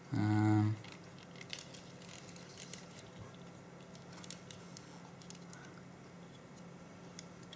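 A short hummed "mm" from a man's voice, then faint scattered clicks and taps of fingers handling the small parts of a disassembled digital camera.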